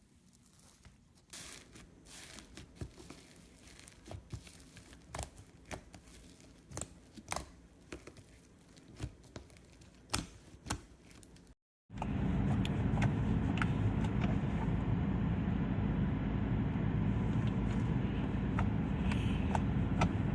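Slime being played with by hand, in two clips. First, sparse small pops and clicks. Then, after an abrupt cut, a louder, dense run of squishing and crackling.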